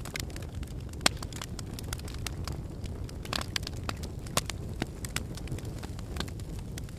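Wood fire in a fireplace crackling, with irregular snaps and pops over a steady low rumble; the sharpest pop comes about a second in.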